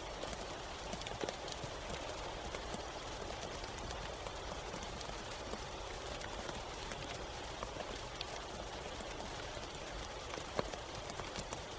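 Steady rain: an even hiss of falling rain with many small irregular drop ticks on a surface, and one sharper drop tick near the end.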